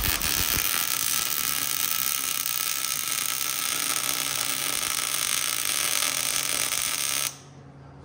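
Electric arc welding: the arc strikes with a few sharp clicks and then runs as a steady, loud crackling hiss for about seven seconds before cutting off suddenly.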